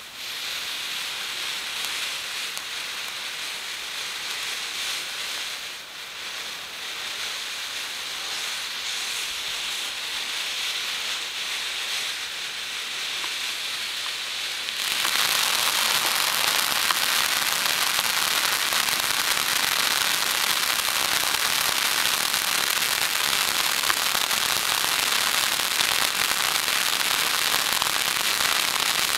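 Panda Fireworks Digital Life ground fountain firework hissing steadily as it sprays sparks. It starts at once and gets louder and fuller about halfway through.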